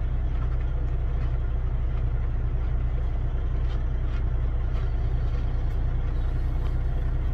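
Semi truck's diesel engine idling, a steady low rumble heard inside the cab, with a few faint crunches of a biscuit being chewed.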